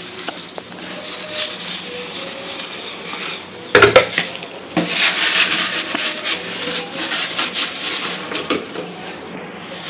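Dishes being washed by hand in a stainless steel sink: a glass lid and a pot scrubbed and handled, with small clinks. A few loud knocks come about four seconds in, followed by busier, louder scrubbing.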